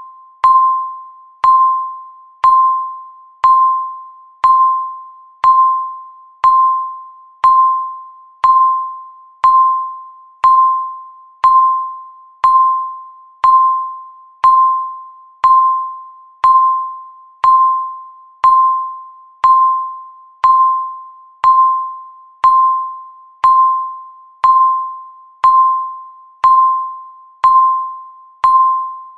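Countdown timer beep: one short, clear tone every second, each starting sharply and fading away before the next. It is the steady once-a-second tick of the countdown, not the final alarm.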